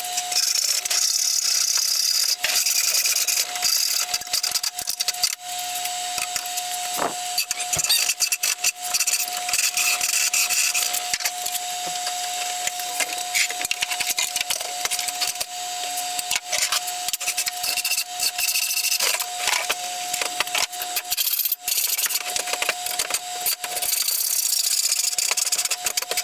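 Hacksaw cutting through the band saw's frame: continuous rapid scraping strokes, with a steady ringing tone under them.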